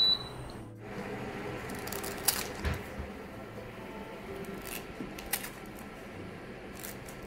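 Kitchen scissors snipping through pandan leaves: several short crisp snips at uneven intervals. It opens with a short high electronic beep.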